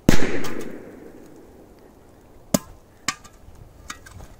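A K04 firecracker exploding under a white bowl: one loud bang with a short echoing decay. Two sharp knocks follow about two and a half and three seconds in, then light crunching footsteps on dry ground.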